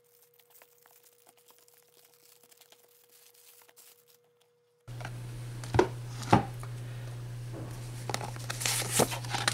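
Faint crinkling and tearing of plastic shrink-wrap pulled off a cardboard model-train box. About halfway through a steady low hum comes in suddenly, followed by two sharp knocks and then rustling and clicks as the cardboard box is opened and the paper inside is handled.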